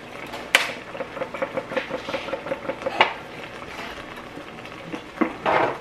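Black pepper shaker being shaken over a stainless steel pot: a sharp click, then a quick run of small rattling taps, about five a second for some two seconds, another click, and a short noisy rattle near the end.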